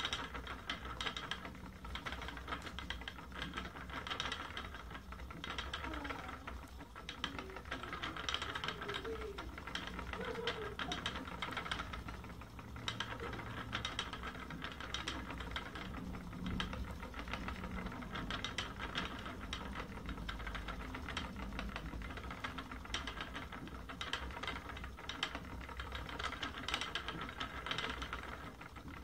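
Wooden treadle spinning wheel running while yarn is spun: a steady fast clatter and whir from the turning wheel, flyer and treadle, swelling and easing every couple of seconds.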